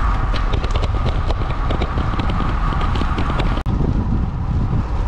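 Wind buffeting a riding cyclist's camera microphone, with road noise under it and scattered light ticks; the sound breaks off for an instant about three and a half seconds in.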